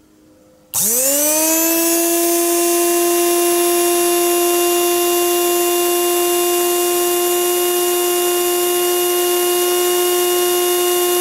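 A Magic Bullet blender's brushed universal motor, bare on the bench and running on 120 volts AC, switches on about a second in and spins up with a quickly rising whine. It then runs steadily at about 21,000 RPM with a loud, high whine.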